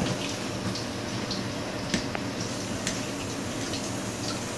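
Wet squishing and a few small clicks from gloved hands working inside a dead freshwater stingray's body cavity, pulling at the liver, over a steady background hiss. One sharper click comes about two seconds in.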